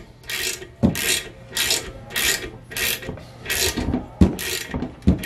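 Hand ratchet swung back and forth, its pawl rasping over the teeth on each back-stroke, about eight strokes in a steady rhythm with a few dull knocks. It is drawing in the side bolts of a bolt-in sprag into a 727 transmission case.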